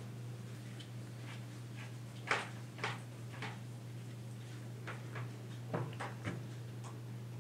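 Scattered soft taps and knocks of yeast dough being handled and divided on a work surface, the loudest two a little over two seconds in, over a steady low hum.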